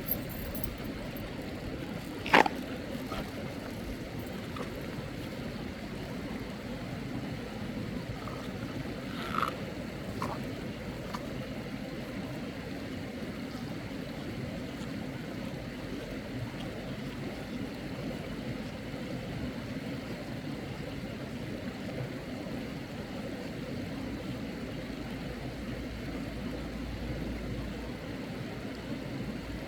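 Steady rush of flowing stream water, with a sharp knock about two seconds in and a smaller one near nine and a half seconds.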